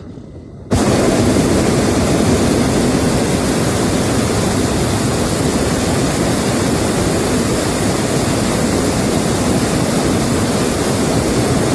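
Hot-air balloon's propane burner firing in one long blast: a loud, steady roar that starts abruptly about a second in.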